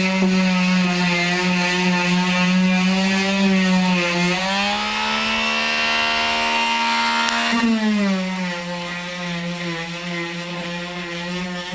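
Electric power sander running steadily with a pitched motor whine; its pitch rises for a few seconds about halfway through, then drops back.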